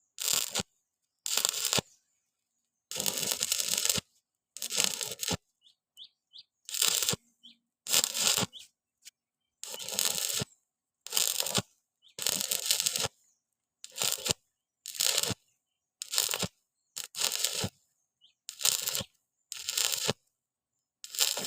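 Electric arc welding on 1.6 mm thin-wall square steel pipe, the arc crackling in about fifteen short bursts of half a second to a second each, struck and broken again with silent gaps between.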